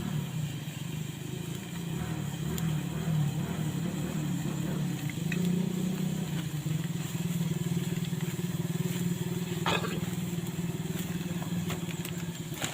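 A small engine running steadily with a low, even hum, with one short sharp knock about ten seconds in.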